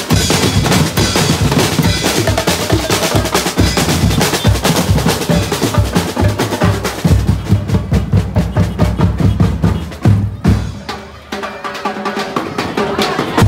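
Drums playing a fast, busy rhythm, with snare rolls over a heavy bass drum; the drumming thins out and drops in level about ten seconds in.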